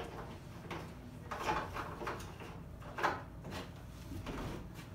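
Hard plastic rubbing and clicking in several short strokes as yellow plastic bolts are twisted by hand into a plastic play slide's ladder panel.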